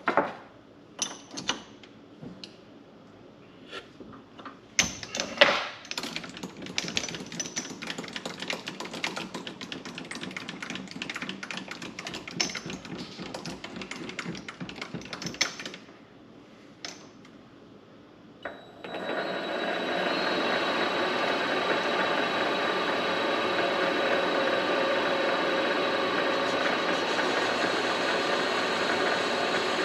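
Clicks and knocks of tooling being handled, then a long stretch of dense rapid clicking and rattling. About 19 seconds in, the Vevor mini lathe's motor and gear train start and run steadily with a gear whine.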